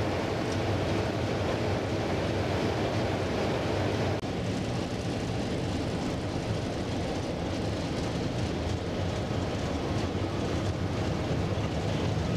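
Class 33 diesel locomotive's engine running under way, heard from inside the driving cab: a steady low drone with rail and cab noise. About four seconds in there is a brief break, after which the hiss is softer.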